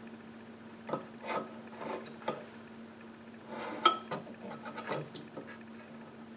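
Soldering gun heating a pin on a circuit board, giving a steady low hum, with scattered light clicks and clatters from handling the gun and board.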